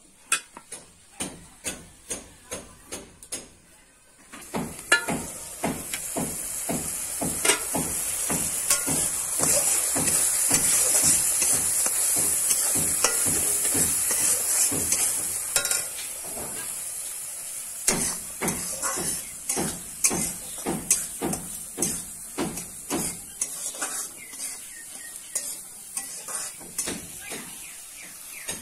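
A metal spatula stirring and scraping food in a wok over a fire, in quick regular strokes, while the food sizzles in hot oil. The sizzling starts suddenly about four seconds in and slowly dies down towards the end.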